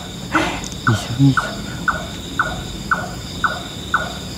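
A short falling call, repeated evenly about twice a second, over a steady high drone of insects. A couple of brief low sounds come about a second in.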